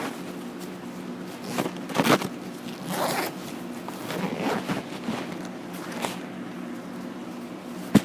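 Plastic seed packaging being handled and opened by hand: several short rasping bursts, the loudest about two seconds in, and a sharp click near the end, over a steady low hum.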